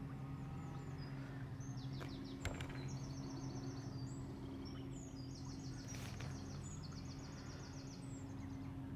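A small songbird singing high, rapid trills in several repeated phrases, over a steady low hum, with a few faint clicks.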